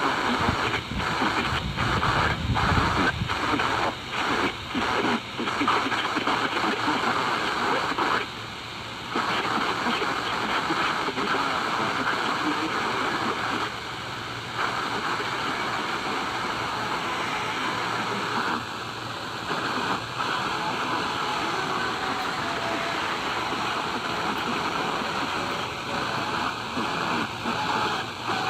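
Radio receiver static: a steady hiss, strongest in the middle of the range, broken by brief dropouts that come thick in the first few seconds and now and then after.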